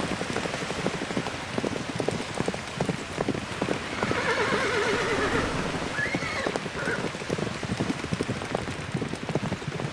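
A horse whinnying once about four seconds in, a wavering call with a short follow-up call just after, over a steady dense patter of small clicks.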